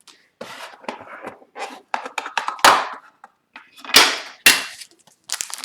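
Sealed hobby box of Upper Deck Series 1 hockey cards being opened by hand: a run of rustling and scraping strokes, with sharp loud rips about two and a half seconds in and again near four seconds.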